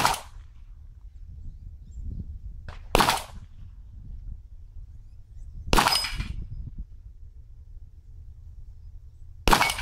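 Four single Glock pistol shots spaced about three seconds apart, each a sharp crack with a short echo.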